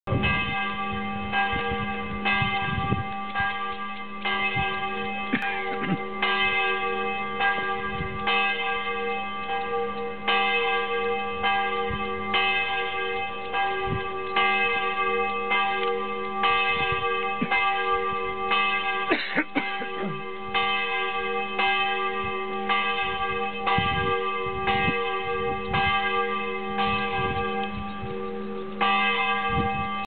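Church tower bell rung steadily, struck about once a second, each stroke sounding over the hum of the previous ones so the ringing never stops.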